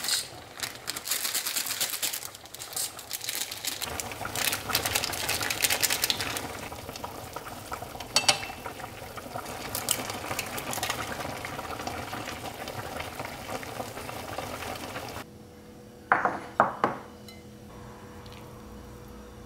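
Ramen noodles boiling in a stainless steel saucepan, with stirring and utensils clinking against the pot, and a sharp metallic tap about eight seconds in. About fifteen seconds in the bubbling stops, and two clinks of a ceramic dish follow.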